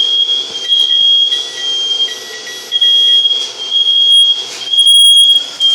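Smoke alarm going off with a loud, high-pitched beeping, set off by smoke from steak under the broiler. A fainter lower tone sounds with some of the beeps in the first three seconds.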